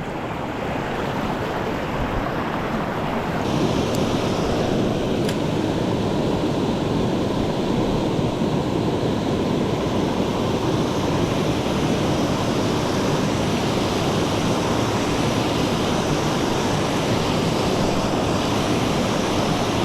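Mountain stream water rushing steadily, a continuous hiss that grows brighter about three and a half seconds in. Two faint ticks come about four and five seconds in.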